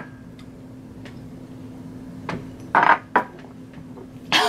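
A few short knocks and clinks of small makeup containers and a cup being handled and set down on a tabletop, over a faint steady hum.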